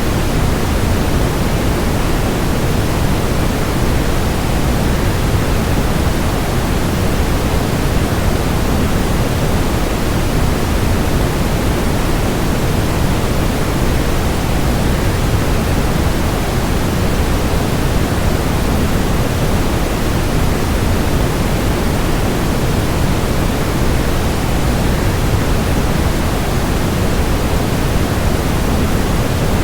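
Waterfall's steady rushing noise, even and unbroken, heaviest in the low end.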